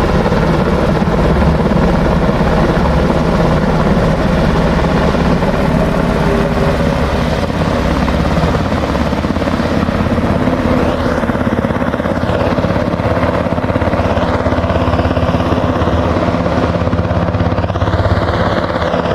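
Helicopter running close by, its rotor beating steadily.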